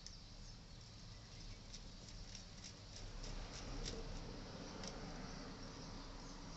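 Faint irregular clicks and light taps, as of small tools and parts being handled, over a steady low rumble that grows slightly louder about halfway through.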